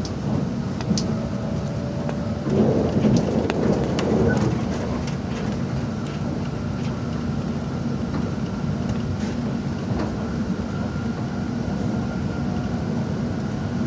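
Passenger train running at speed, heard from inside the carriage: a steady low rumble with scattered clicks, swelling louder for a couple of seconds about three seconds in.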